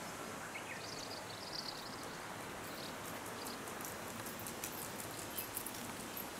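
Rural outdoor ambience: a steady hiss of open air, with a few short bird chirps about a second in and quick, faint, very high ticks through the second half.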